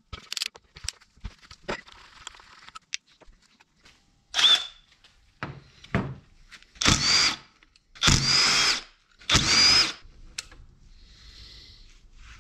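A power drill run in four short bursts, its whine rising within each run, backing out the bolts that hold the oil pump to the engine block. Scattered clicks and knocks of tool handling come before the runs.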